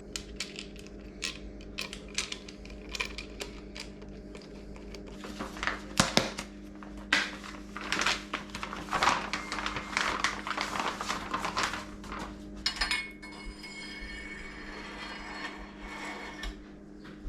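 Metal tools and bicycle parts clinking and tapping against each other in irregular light knocks, the sound of hands-on work on a bike's fork and headset parts.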